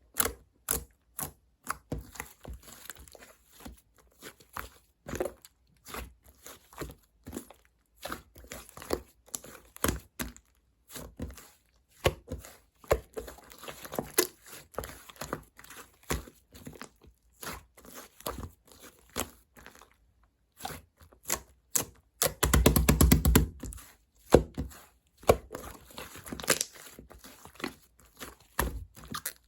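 Soft, chewy white clay slime being squeezed, poked and stretched by hand, giving irregular sticky clicks and small pops, with a dense run of rapid crackling pops about three quarters of the way through.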